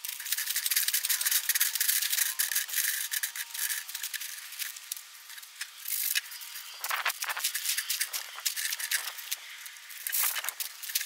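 Small frosted glass pieces rattling and clinking continuously as they are scooped with a plastic cup across a wire-mesh screen and poured, with a few sharper knocks about six, seven and ten seconds in.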